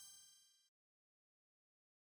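Near silence; the last faint ring of a chime dies away at the very start.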